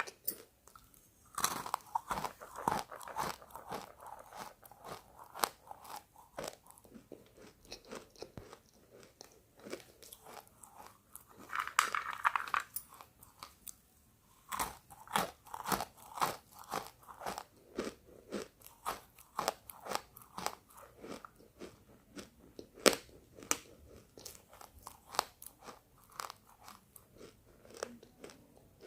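Close-up crunching and chewing of roasted pink chalk: sharp, brittle crunches several times a second, with brief pauses about a second in and about halfway through.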